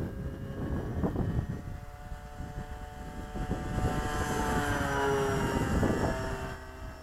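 Electric motor and propeller of an FMS 1400mm Cessna 182 RC model plane whining in flight. The whine grows louder about four to six seconds in and drops in pitch as the plane passes, over a low rumble of wind on the microphone.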